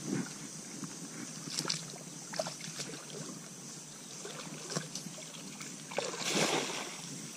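Feet wading and sloshing through shallow stream water, then a cast net thrown and landing on the water with a brief splashing hiss about six seconds in.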